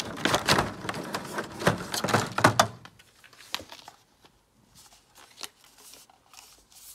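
Clear plastic blister packaging crinkling and crackling as it is handled. The crackling is busy for about the first three seconds, then thins out to a few scattered crackles.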